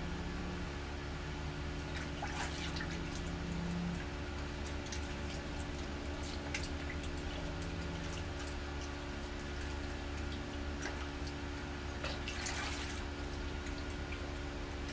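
Water running and dripping at a sink as hands are washed, with two brief louder splashing bursts about two seconds in and again about twelve seconds in, over a steady low hum.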